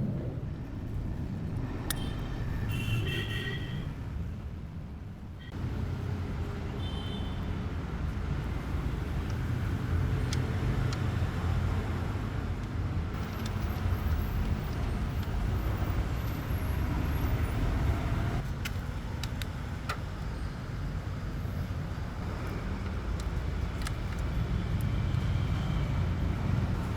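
Steady low rumble of passing road traffic, with a few light clicks and brief higher tones mixed in.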